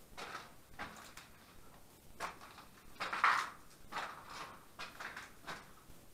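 Irregular footsteps scuffing and crunching on a gritty floor, roughly one to two steps a second, the firmest step a little past the middle.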